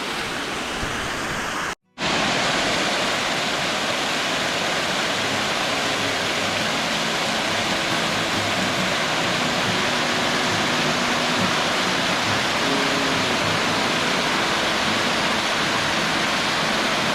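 Waterfall: a steady, even rush of falling water close by. It cuts out for a moment about two seconds in, then carries on a little louder.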